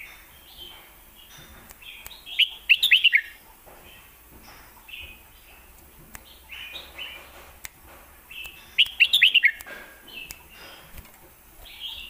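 Red-whiskered bulbul singing: two loud bursts of quick falling notes, one about two seconds in and one about nine seconds in, with softer chirps between.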